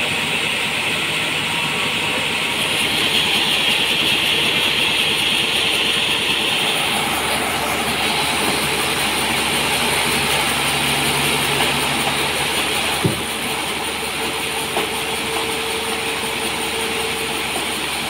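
Large band sawmill running, its blade cutting lengthwise through a big trembesi (rain tree) log with a steady mechanical noise. A single sharp knock comes about two-thirds of the way through.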